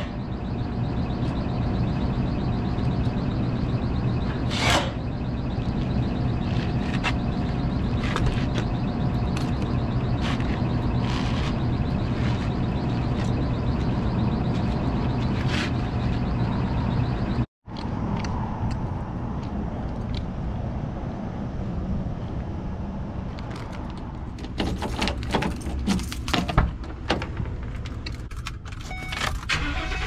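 Rooftop packaged air-conditioning unit running in cooling mode: a steady low hum with faint steady tones, with scattered clicks of tools being handled. The sound cuts out for a moment just past halfway, then comes back quieter, and near the end there is a quick run of clicks and knocks.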